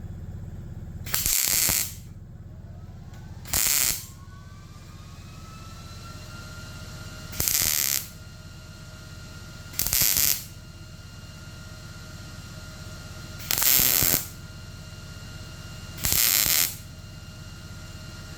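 Six short tack welds on the sheet-steel patch panel of a car hood, each a harsh crackle of the welding arc lasting about half a second, a few seconds apart, over a steady low hum.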